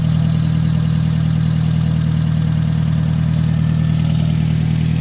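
1993 Honda Civic four-cylinder engine running steadily, now firing after a new fuel pump replaced the old one that had let it crank but not start.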